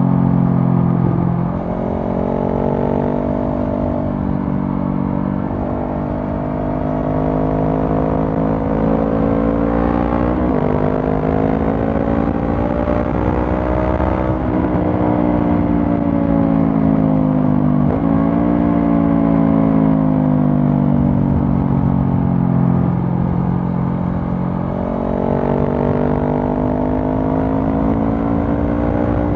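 Honda CB500F's parallel-twin engine through a Mivv GP Pro stainless slip-on exhaust, ridden on the road. The engine note climbs and falls with the throttle, and drops suddenly in pitch about a second and a half, ten seconds and eighteen seconds in, as gears are changed.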